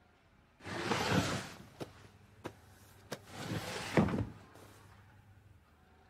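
A sliding door rolling along its track, twice, with a few light clicks in between; the second slide ends in a sharp knock, the loudest moment, as the door hits its frame.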